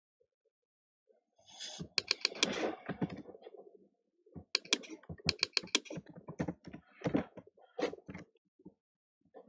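Clusters of sharp clicks and taps from a computer keyboard and mouse, in several quick bursts after a quiet first second.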